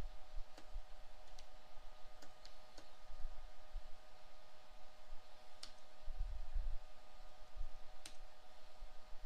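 Computer keyboard keys being typed in a sparse, irregular run, about seven separate clicks, over a steady hum.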